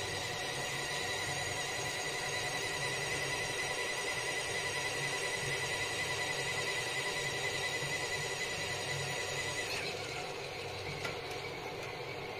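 Mini washing machine's wash motor running steadily with a whining tone, churning the water and clothes. About ten seconds in the sound drops a little as the wash cycle comes to its end.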